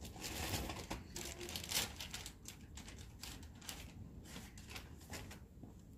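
Stray cats crunching dry cat food: a quick, irregular run of crisp crunches, densest and loudest in the first two seconds.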